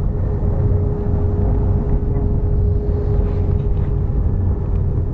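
Motor vehicle running: a loud, steady low rumble with a faint, steady whine held through it.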